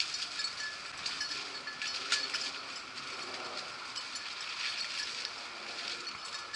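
Faint baying of rabbit-hunting beagles, steady and continuous, from dogs working a rabbit's trail.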